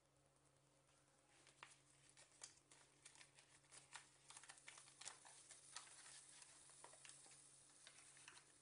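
Faint crackling sizzle from a cast-iron stovetop toastie maker on a gas burner as the sandwich inside toasts. Irregular crackles set in after about a second and a half and grow denser, over a steady low hum.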